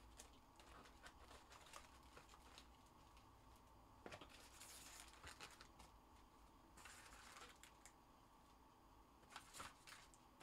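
Faint rustling and light clicks of trading cards being handled and flipped through over a cardboard box, with a couple of sharper clicks, one about four seconds in and one near the end.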